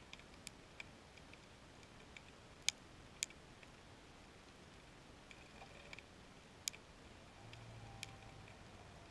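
Irregular sharp clicks picked up by an underwater camera on the seabed, about a dozen scattered through a faint background, the loudest three close together near the start and one more past the middle. A faint low hum comes in near the end.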